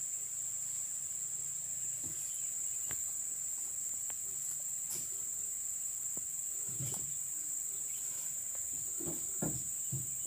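Steady high-pitched drone of insects, with a few scattered faint clicks and low thuds, more of them in the second half.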